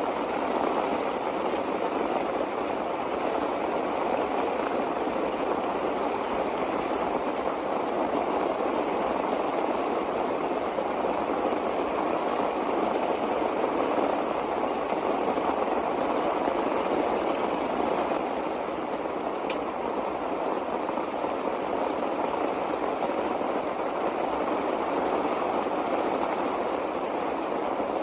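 Steady rushing water, a dense even noise that does not let up.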